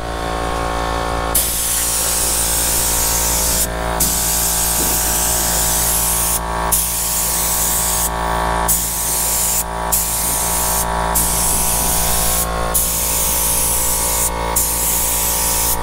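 Gravity-feed paint spray gun spraying clear coat: a steady hiss of air and atomised paint that starts about a second in. It breaks off briefly every second or two as the trigger is let go between passes. A steady low hum runs underneath.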